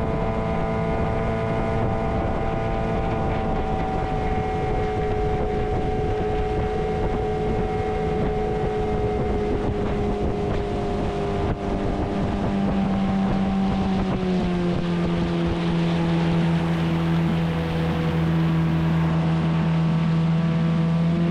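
Outboard motor driving a small fishing boat along at a steady pace, with wind on the microphone. The motor eases off about two-thirds of the way through, its note dropping to a lower steady pitch.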